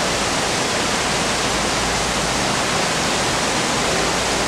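Steady rushing noise, even and unbroken, of the kind made by running water.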